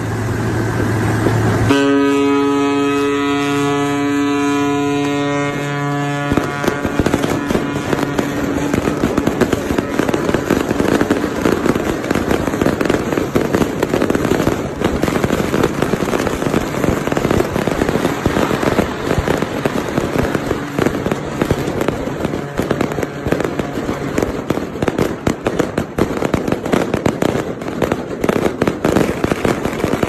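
A low steady drone, then a deep ship's horn sounding one long steady blast from about two seconds in. About six seconds in, a long string of firecrackers starts crackling densely without a break, the usual accompaniment to a ship launch.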